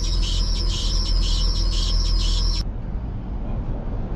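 Box truck's engine running with a harsh, high-pitched chirping squeal from the engine bay, pulsing about twice a second over a low engine rumble; it comes on as soon as the engine is started and its cause is not yet known. The squeal and rumble cut off suddenly about two and a half seconds in.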